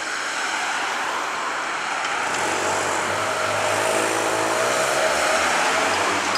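Cars of a motorcade driving past, engines and tyres on the road growing steadily louder, with a pitched engine tone swelling through the middle.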